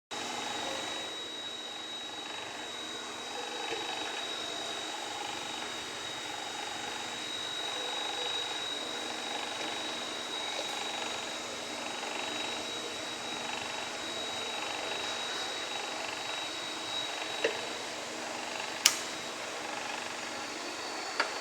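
Plant growth chamber running with a steady hum and a thin high whine; near the end come three sharp clicks, the loudest a little after the whine fades. The owner is unsure whether such clicks are a switch or relay turning on and off or an abnormal clogging or popping from the compressor.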